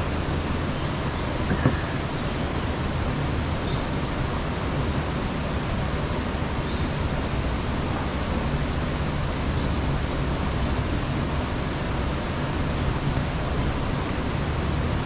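Steady rushing background noise with no distinct events, and one brief knock about one and a half seconds in.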